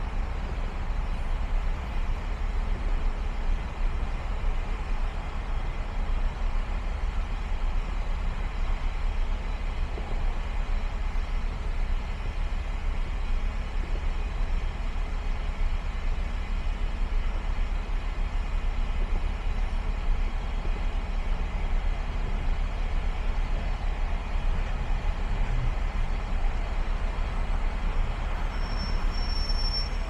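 Car driving on a city street: steady road and engine noise with a strong low rumble and an even hiss of tyres on the road.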